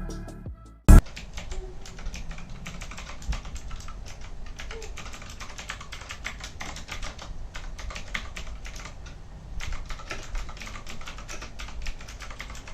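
Keys of a Cosmic Byte CB GK-12 mechanical keyboard being typed on in quick, irregular clicks, after a single loud thump about a second in.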